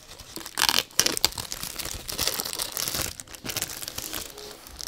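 Packaging being unwrapped by hand: irregular crinkling and tearing, loudest about a second in.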